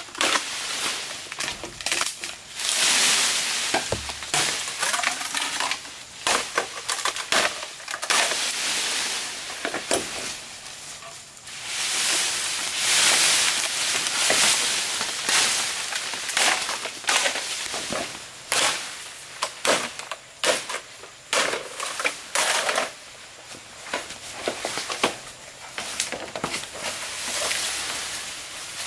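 Bamboo stalks being pulled down through the canopy and cut with a machete: several long swells of rustling, crackling leaves and branches, broken by many sharp snaps, knocks and chops.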